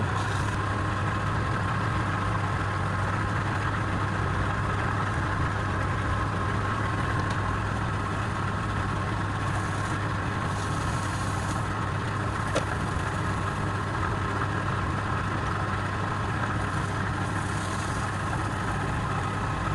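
Wood lathe running at a steady speed with a constant motor hum. Faint hissing comes in briefly around the middle and again near the end.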